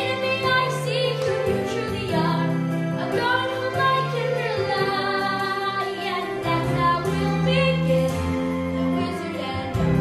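A girl singing a solo song over musical accompaniment, holding notes and moving between pitches.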